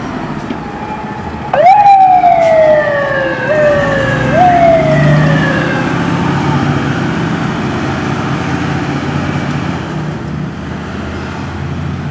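Fire engine siren sounding in one sudden loud sweep about a second and a half in, then sliding steadily down in pitch, pushed back up twice in quick short rises before it fades out about six seconds in. The truck's engine runs underneath as a low rumble throughout.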